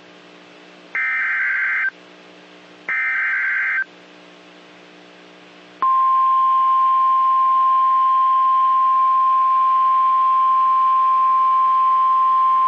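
NOAA Weather Radio Emergency Alert System signalling: two bursts of SAME digital data, each a harsh warbling screech about a second long, then about six seconds in the steady single-pitch 1050 Hz weather radio warning alarm tone begins and holds.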